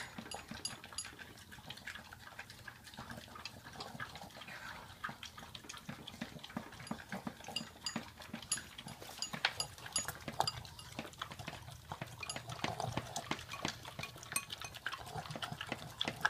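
Boston terriers licking and lapping a sticky yogurt and peanut butter treat out of ceramic bowls: many quick wet tongue clicks with the odd knock of a bowl.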